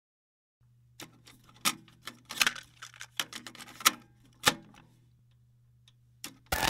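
Video cassette recorder's tape mechanism running: irregular sharp clicks and clunks over a low, steady motor hum. Loud music cuts in at the very end.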